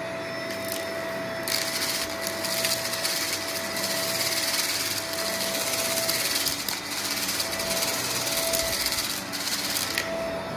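Upright vacuum cleaner running on carpet with a steady whine. From about a second and a half in until near the end, debris being sucked up crackles and rattles through it.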